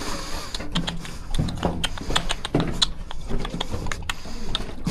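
A person making quick, irregular sharp clicks, several a second, to give the bats flying past something to hear.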